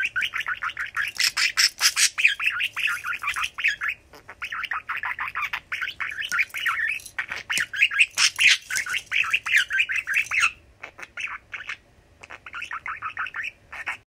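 Male budgerigar chattering and warbling in fast runs of short, scratchy chirps, with brief pauses between the runs and a few sharp clicks mixed in.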